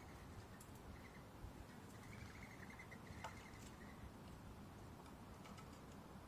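Near silence, outdoor quiet with faint short high chirps, most of them between two and four seconds in, and one small sharp click near the middle.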